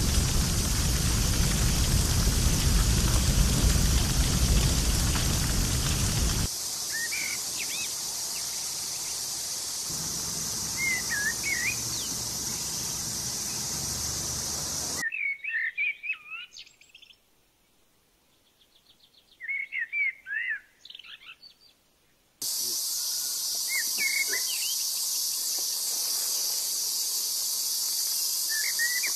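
Wild birds chirping in short calls over a steady, high-pitched insect drone, in several abruptly spliced pieces of forest ambience. For about the first six seconds a louder rushing noise covers everything. About halfway through, the drone drops out for several seconds, leaving only the bird calls.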